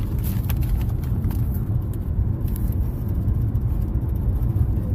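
Steady low rumble of a car cabin, with a few faint clicks over it.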